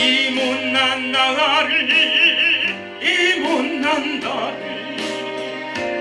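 A man singing a slow Korean gospel song into a handheld microphone, long held notes with wide vibrato over a backing track of sustained chords. There is a short break about three seconds in, and the next sung line starts near the end.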